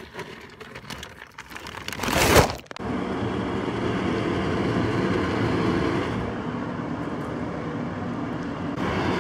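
A car's hatchback tailgate being closed, a loud rush and thud about two seconds in, followed by a steady whirring hum with a low drone.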